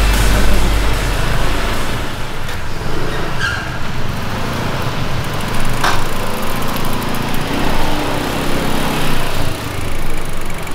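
An engine running steadily, with a sharp click about six seconds in.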